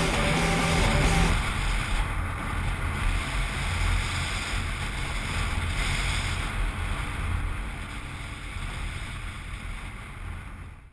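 Soundtrack music stops about a second in. From then on, wind buffets the helmet-mounted camera's microphone over a low, steady motorcycle rumble while riding along at road speed. The sound fades out abruptly at the very end.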